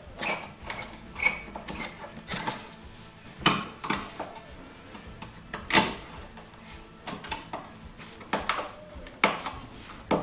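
Irregular metallic clinks and knocks of hand tools working on metal snowmobile parts during disassembly, a few sharp knocks standing out.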